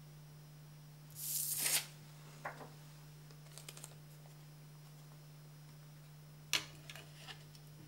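Paper handling on a wooden tabletop: a card slid off the table with a short papery swish a little over a second in, then a light tap. About six and a half seconds in comes a sharp click as a sheet held by a bulldog clip is set down, followed by small paper rustles, all over a steady low hum.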